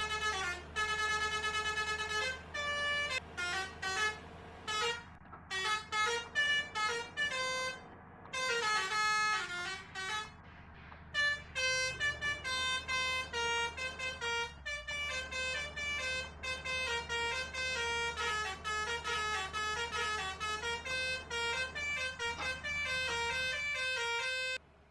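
Basuri 'telolet' multi-tone musical horn playing a fast melody of short, stepping notes, broken by a few brief pauses. A steady low hum runs underneath.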